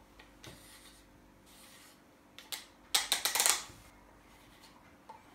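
Black plastic Minox daylight developing tank being screwed together by hand, its parts rubbing and clicking. A single click comes about two and a half seconds in, then a quick run of rasping clicks about three seconds in.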